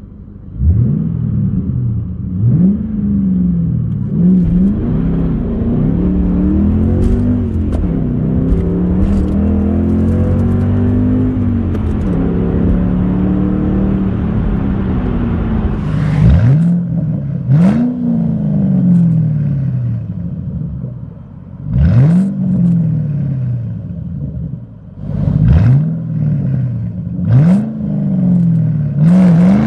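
Ford Mustang V8 engine being revved for a sound check: the engine note rises and falls through the first half, then a series of quick throttle blips about every two to four seconds, each jumping up sharply and sliding back down.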